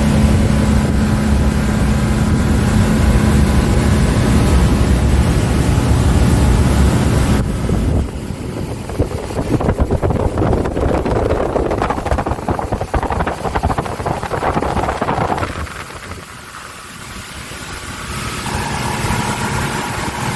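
A motor engine running with a steady low hum for the first several seconds, then changing abruptly to a rougher rushing noise. A quieter stretch follows, and a different steady tone comes in near the end.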